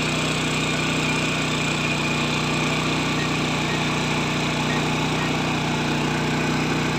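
DJI agricultural spraying drone's rotors running with a loud, steady hum and rush of prop noise.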